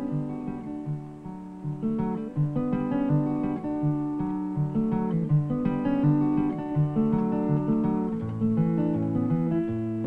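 Background music: acoustic guitar playing plucked notes and strummed chords, changing steadily.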